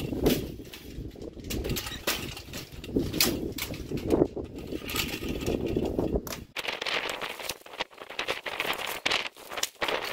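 Clatter and knocks of a steel-mesh garden cart and a plywood board being moved into place, over a low rumble. From about six seconds in, crinkling of plastic shrink-wrap as a wrapped box is handled.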